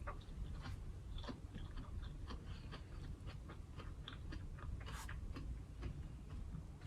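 A person chewing food close to the microphone: a string of small, irregular mouth clicks, with a sharper one about five seconds in.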